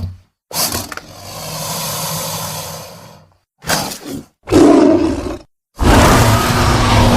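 Yangchuanosaurus dinosaur sound effects: a string of separate growls and roars with silent gaps between them, about four calls. The last is the longest and loudest roar.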